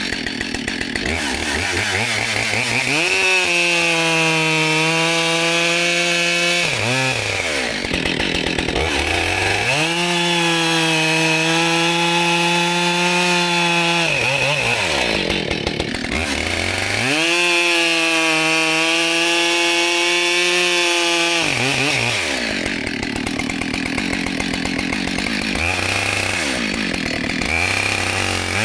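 Husqvarna 572XP two-stroke chainsaw with a 24-inch bar and freshly hand-filed chain, bucking a log into firewood rounds. It goes to full throttle for three cuts of about four seconds each and drops back to idle between them, with two quick blips of the throttle near the end.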